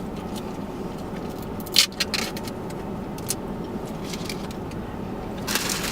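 Steady low hum inside a car, with a few brief crinkles and clicks of food packaging being handled about two seconds in and rustling near the end.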